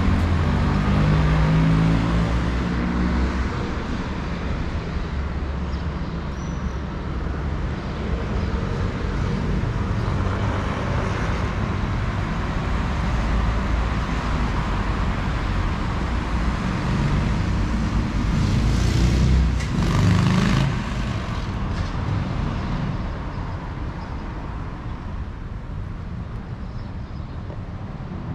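Street traffic: motor vehicles passing with a steady rumble. An engine grows louder near the start and again about two-thirds of the way through.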